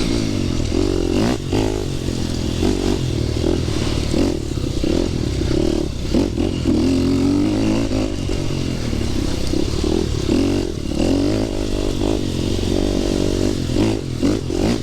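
Dirt bike engine running while riding on a trail, its pitch rising and falling with throttle and gear changes, with short knocks and rattles from the bike over rough ground.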